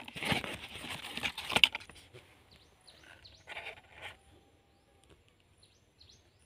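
Dry, crackling rustle of a papery bamboo shoot sheath being handled, loudest in the first two seconds, with another short rustle about three and a half seconds in. Faint bird chirps follow near the end.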